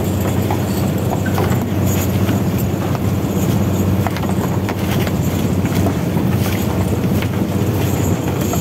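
Fishing boat's engine running steadily: an even low hum with faint clicks and knocks scattered over it.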